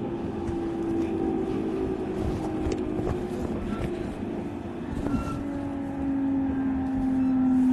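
Running sound inside a JR East 701 series electric train's motor car (モハ701-1507): the traction motor whine falls steadily in pitch as the train slows. A few short clicks sound over it.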